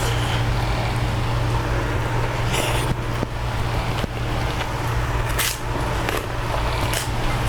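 Close-miked chewing and crunching of food, with scattered crisp clicks and crackles a few times, over a steady low hum.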